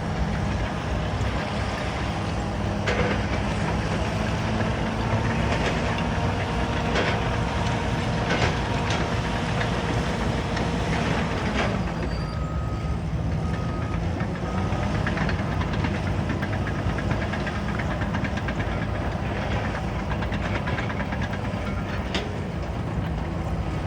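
Caterpillar bulldozer's diesel engine running steadily, with scattered sharp clanks and knocks over it; the engine note drops slightly about twelve seconds in.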